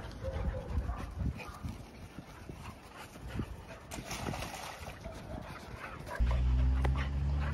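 Dogs playing, with whines, yips and a bark, and splashing as one dog steps through a plastic wading pool. About six seconds in, a steady low hum starts suddenly and is louder than the rest.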